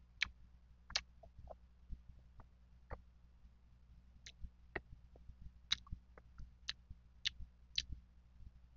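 Close-miked chewing of firm mango slices: irregular sharp clicks and snaps of fruit flesh and mouth, several a second at times, louder near the middle and end.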